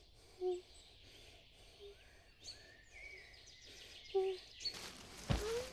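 Forest ambience: birds chirping over a steady hiss, with a few short low hums. Near the end comes a louder rushing burst with a brief rising tone.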